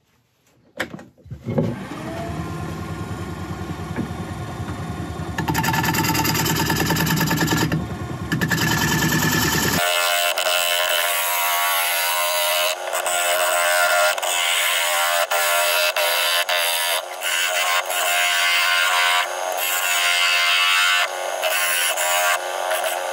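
A wood lathe starts up about a second in and runs with a steady hum. A bowl gouge then cuts the outside of a spinning olive ash bowl blank, giving an uneven scraping hiss as shavings come off.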